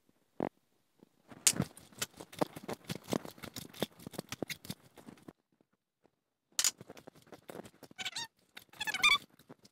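A spoon clicking and clattering quickly against the bowl while seasoning is stirred into the mixture, for about four seconds, then a single click and a few short squeaks near the end.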